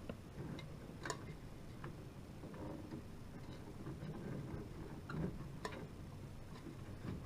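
Faint, irregular small plastic clicks and taps, about seven spread unevenly: a stock CPU cooler's push-pin fasteners being worked and pressed into the motherboard holes.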